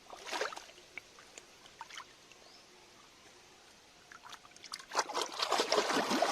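Water trickling and splashing, with a few small clicks; about two-thirds of the way through the splashing becomes denser and louder.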